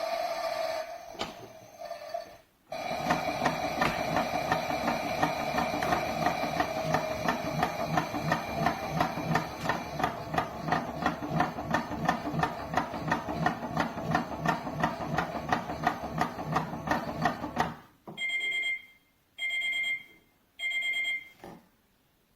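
Theo Klein toy Miele washing machine playing its electronic wash-cycle sound through its small speaker: a rhythmic churning pulse, about three beats a second, then three beeps near the end that signal the program is finished.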